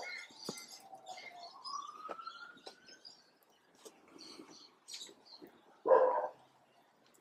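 A dog barks once, about six seconds in. Birds chirp in the background, with small clicks and knocks as the brass burner fittings are handled.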